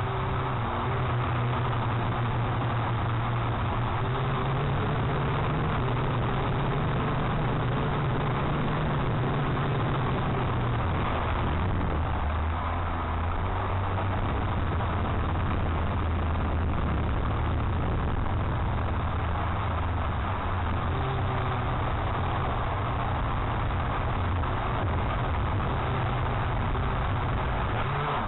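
Strong wind buffeting the microphone: a dense, steady rush with a low hum beneath it that drops in pitch a little before halfway and rises again later.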